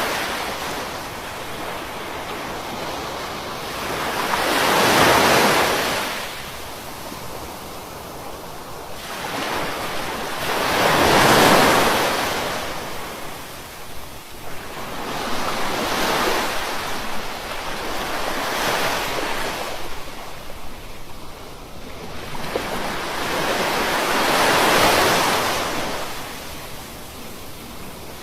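Ocean waves breaking on a beach, one surge every few seconds with the loudest about 5, 11 and 25 seconds in, each washing out and fading before the next, with some wind noise on the microphone.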